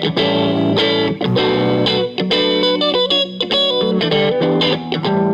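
Live music: an electric guitar playing chords in an instrumental passage without singing, with short rhythmic breaks between the chords.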